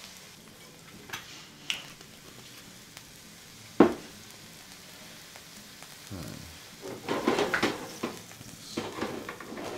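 Meat juices and brandy sizzling in a hot metal roasting tray on a gas burner as it is deglazed. There is a sharp knock about four seconds in, and from about six seconds the tray is shifted on the burner, with metal scraping and clattering.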